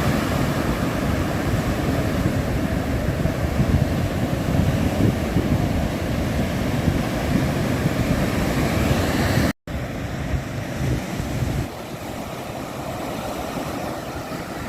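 Wind buffeting the microphone over the rush of surf, a loud steady rumbling noise. It cuts out for an instant a little over halfway through and comes back somewhat quieter.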